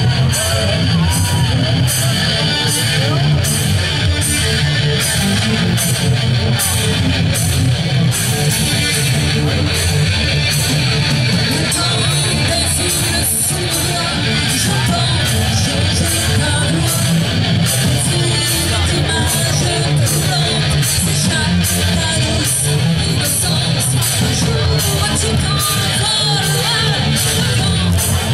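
Live rock band playing loud: electric guitars and bass over drums, with cymbals struck in a steady beat about twice a second.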